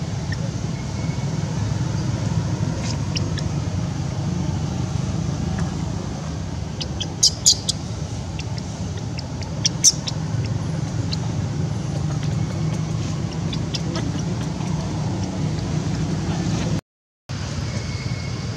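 A steady low rumble, with a few short high chirps about seven seconds in and again near ten seconds.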